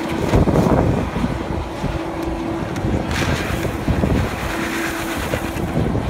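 Wind buffeting the microphone, over the steady running of the blast furnace's air blower.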